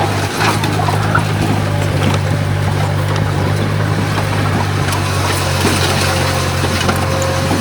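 Komatsu D51PX bulldozer's diesel engine running steadily under load, a constant low hum with scattered faint knocks.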